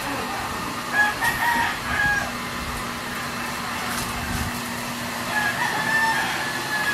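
A rooster crowing twice, once about a second in and again near the end, over a faint steady low hum.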